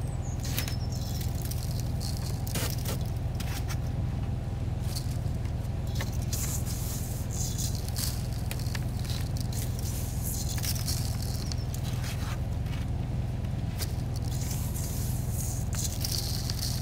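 Dry salt-and-sugar cure being sprinkled by hand and patted onto raw salmon sides in a cooler: scattered light patters and scrapes of the grains, over a steady low hum.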